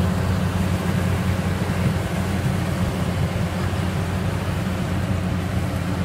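Yanmar YH850 combine harvester's diesel engine running steadily under load as the machine cuts and threshes rice, a constant deep drone.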